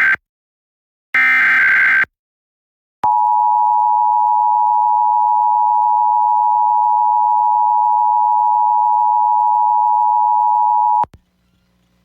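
Emergency Alert System test signal. It opens with the end of one SAME header data burst and then a whole second burst, each a harsh warbling digital screech just under a second long. After a second's gap comes the EAS two-tone attention signal, 853 Hz and 960 Hz together, a steady, harsh tone held for about eight seconds that cuts off suddenly.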